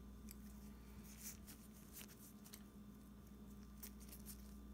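Near silence: room tone with a faint steady hum and a few faint clicks from the metal baffle pusher tool being handled.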